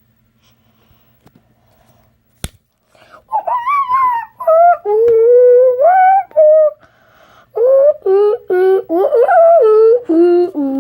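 Near silence with a faint hum at first, a single sharp click about two and a half seconds in, then a high, young-sounding voice vocalizing without words in long, sliding notes broken by short pauses.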